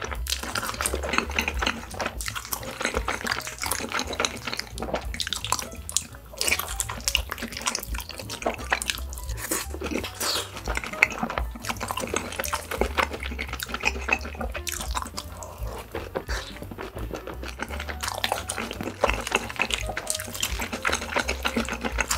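Close-miked eating of fried chicken coated in melted cheese sauce: wet, sticky chewing and mouth smacking with many quick clicks. Faint background music underneath.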